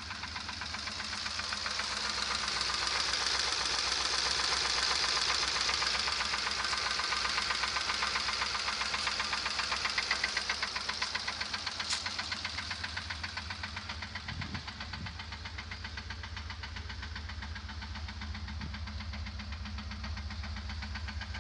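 Fiat Croma engine idling with a fast, regular knock (стук) running through it.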